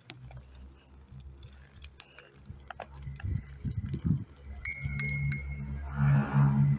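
A bicycle bell rung three times in quick succession, about five seconds in, over a low steady hum that grows louder near the end.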